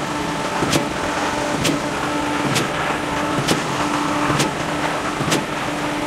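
Concrete pump truck running steadily, with a sharp knock about once a second as the pump strokes.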